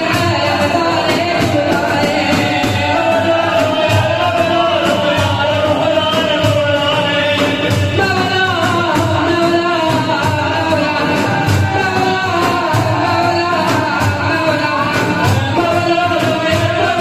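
Men singing a Sufi ilahi together, accompanied by large frame drums (daf) beating a steady, fast rhythm.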